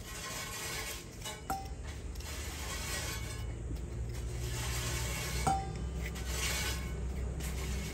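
Ginger root being scraped with a metal utensil over a stainless steel bowl: repeated rasping scrapes. Twice, about four seconds apart, the metal gives a short ringing clink against the bowl.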